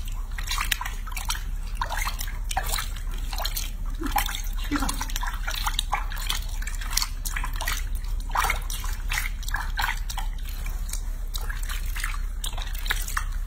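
Bathwater in a small basin being stirred and splashed by a hand washing a baby monkey: many small irregular splashes and drips, without a break.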